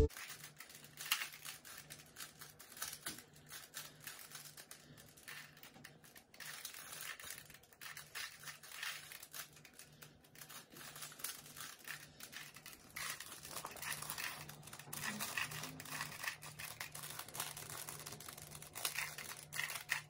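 Plastic Rubik's cubes being twisted quickly by two people: a dense, irregular run of small clicks and clacks as the layers snap round, played back sped up.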